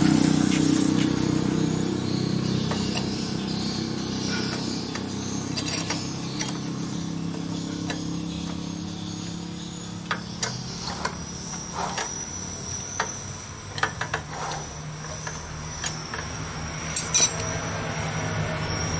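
Scattered light metallic clicks and taps of a hand tool and metal engine parts being handled on an opened motorcycle engine, mostly in the second half, over a low background hum that fades away in the first half.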